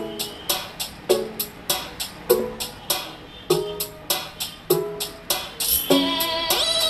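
Music with a sharp percussive beat about every 0.6 s and short pitched notes, played through a homemade carbon-fibre Bluetooth speaker as a sound test. Near the end a held chord with gliding high notes comes in.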